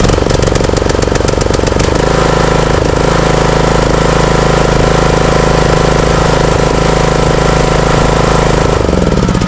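Craftsman riding mower engine that has just started, running steadily after a replacement starter solenoid cured its click-but-no-start fault. It settles about two seconds in, then slows and winds down near the end as it is shut off.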